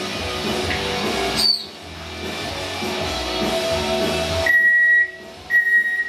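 Guitar music playing, with an African grey parrot whistling over it: a quick sliding whistle about a second and a half in, then two loud, long, steady high whistles near the end.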